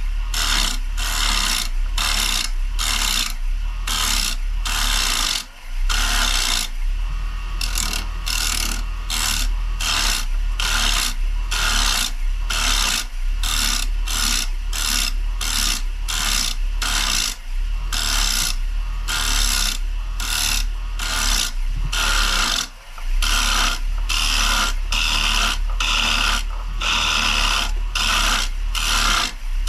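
Rikon carbide turning tool scraping into spinning maple on a Rockler 10x18 wood lathe, a rasping cut broken into short strokes about twice a second, over the steady hum of the lathe motor. There are two brief pauses in the cutting.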